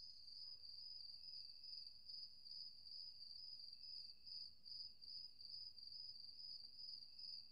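Faint crickets chirping in a high, even trill that pulses about twice a second, over near silence.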